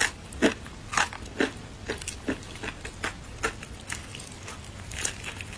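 Crispy battered fried chicken crunching as it is bitten and chewed, a run of sharp crackling crunches about two a second.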